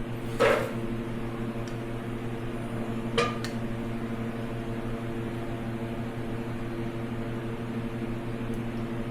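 Steady mechanical hum of a running fan or motor, with two light clicks, one about half a second in and one about three seconds in.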